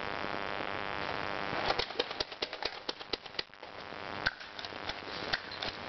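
Airsoft guns firing: a fast, irregular run of sharp clicks and snaps for about two seconds, then a few single cracks.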